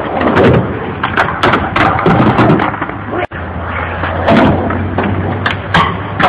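Skateboard wheels rolling on concrete, with repeated sharp clacks and thuds of the board hitting the ground and the ledge.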